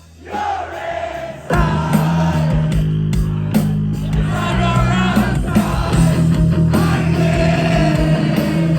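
Rock band playing live: after a quieter opening, the full band comes in loud about a second and a half in, with singing over it.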